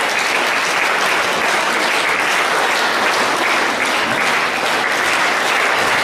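Audience applauding: a steady, dense clapping that holds at an even level throughout.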